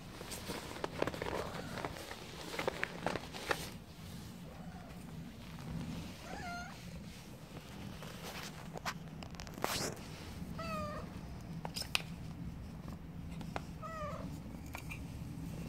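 Black-and-white stray cat meowing three times, short calls a few seconds apart, the first about six seconds in. Light rustling and clicks of fur being handled can be heard between the calls.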